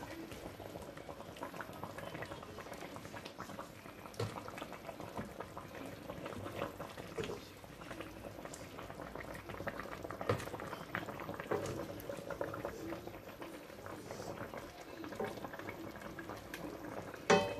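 A pot of goat meat soup at a rolling boil, bubbling steadily, while a wooden spoon is worked through it.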